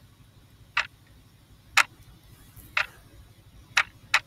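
Clock-ticking sound effect: short, sharp ticks about once a second, counting down the time to answer a quiz question.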